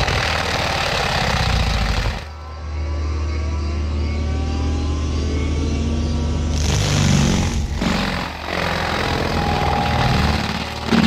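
Excavator diesel engine running a forestry mulcher head, with loud grinding noise as the mulcher chews into wood for the first two seconds and again briefly about seven seconds in. A steady engine drone fills the gaps between.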